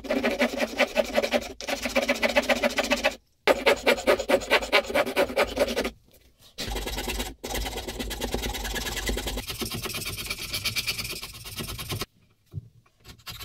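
Planemaker's float rasping wood in quick back-and-forth strokes inside the throat of a wooden plane, truing the bed where the iron and wedge sit. Two bursts of strokes with a short break, then steadier, lower scraping in the second half.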